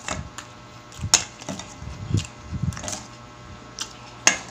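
A person eating close to the microphone: chewing and lip smacks with a few sharp clicks, the loudest about a second in and near the end.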